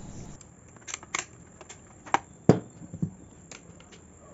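A few separate sharp clicks and knocks from handling a digital multimeter and its test leads on a work mat, the loudest a thump a little past halfway.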